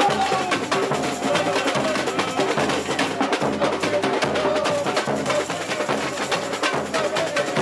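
A samba drum section playing a fast samba rhythm: large bass drums pulse steadily under rapid stick strokes on snare drums.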